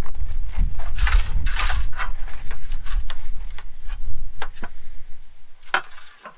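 A table knife scraping and clicking against a stainless steel plate as a pancake is cut, with several sharp clinks in the second half. A low rumble of wind on the microphone runs underneath and drops out briefly near the end.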